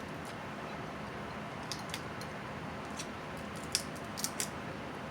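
Snow crab being eaten: a handful of short, sharp clicks and snaps, the loudest about three-quarters of the way through, over a steady background hiss.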